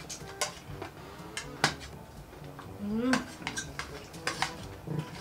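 Cutlery clinking and scraping against plates while eating, a series of sharp irregular clicks. A brief voice-like hum rises in pitch about three seconds in.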